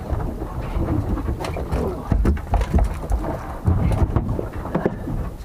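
Low, gusty rumble of wind buffeting the microphone, with a scatter of short knocks and thuds from handling gear and fish on a boat deck.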